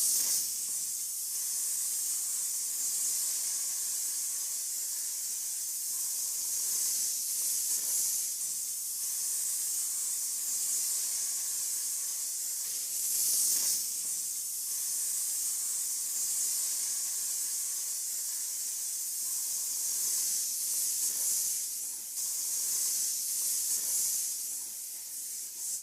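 Steady high-pitched hiss of spraying air, with a few brief surges.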